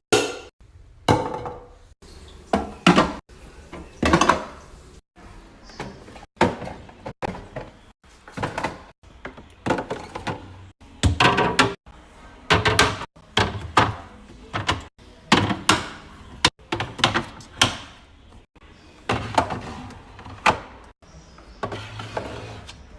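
A string of knocks, clacks and rustles from items and plastic containers being handled and set into a refrigerator, about one every second.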